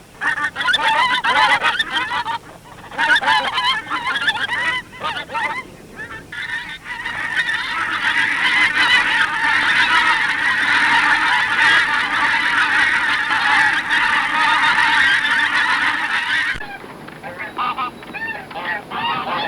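Geese honking: repeated calls, at first in bursts with short gaps, then many overlapping into a dense flock chorus. About three-quarters of the way through, the sound cuts abruptly to a different, thinner recording of fowl calls.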